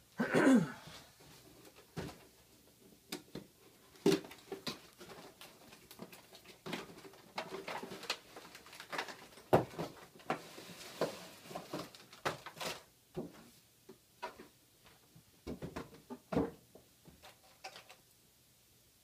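Cardboard box and plastic packaging of a toy RC helicopter being handled and opened: irregular rustling, scraping and light knocks. Right at the start there is a short, loud squeak that falls in pitch.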